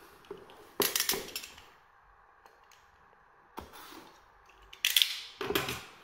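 Cardboard box handled on a wooden table while a utility knife slits its seal sticker: a few short scrapes and clicks, the loudest, a brief scratchy cut, about five seconds in.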